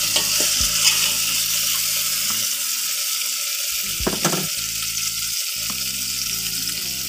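Flatbread frying in a thin film of very hot oil in a pot, a steady sizzle. A spoon moves the bread around at first, and there is a brief knock about four seconds in.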